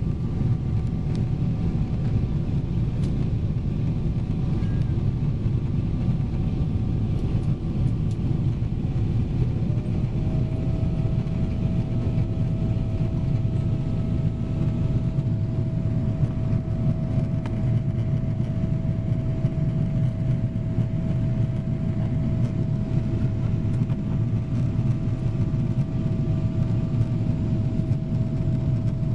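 Jet airliner cabin noise during the climb after takeoff: the steady roar of engines and airflow through the fuselage. A steady hum comes in about ten seconds in and holds.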